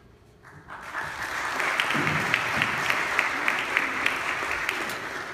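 Audience applauding, swelling up about a second in and dying away near the end, with one clapper's sharp claps standing out close by.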